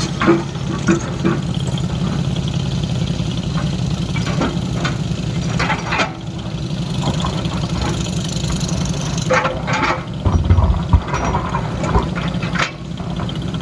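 Excavator's diesel engine running steadily, with sharp knocks scattered through and a heavier thump about ten seconds in.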